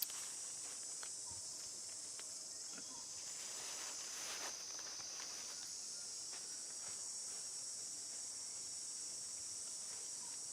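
Steady high-pitched drone of an insect chorus, with a few faint clicks and a brief rustle about four seconds in.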